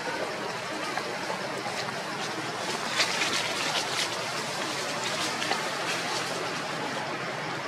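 Rustling and crunching of footsteps pushing through dry leaf litter and forest undergrowth, over a steady hiss, with a cluster of sharp twig-snapping clicks about three to four seconds in.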